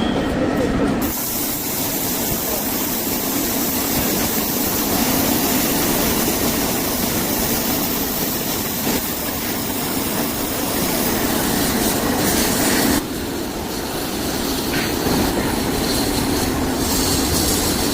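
Loud, continuous clattering and rumbling of heavy metalworking machinery in a scrap-recycling iron works, changing abruptly about a second in and again near thirteen seconds.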